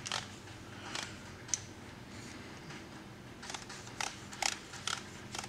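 Scattered light clicks from an adjustable torque wrench as its handle is twisted to reset the setting to 35 foot-pounds. There are a few single clicks, then a quicker run of them near the end.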